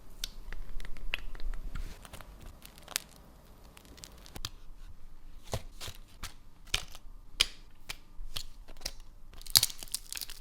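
Close-up sandwich-making sounds: crisp crackling and tearing as a sandwich is handled, dense for the first couple of seconds, then scattered sharp crackles, with a loud cluster near the end.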